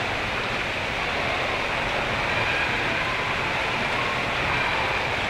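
Steady rushing noise of water running down a water slide, with a few faint high tones on top.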